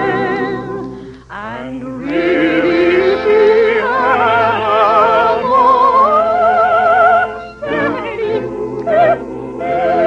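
Operatic singing with wide vibrato: a run climbing in pitch, then long held high notes, with a short break about three-quarters of the way through.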